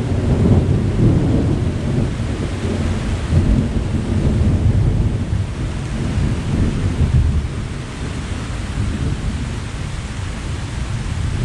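Thunderstorm: low rolling thunder over steady rain, easing a little over the last few seconds.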